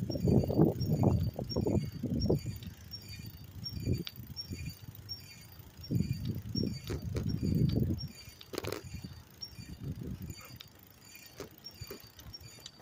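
Bicycle being ridden: gusty low rumble of wind and rolling noise on the microphone that swells and fades, with a faint, regular high tick about twice a second from the bike's moving parts and an occasional sharp click.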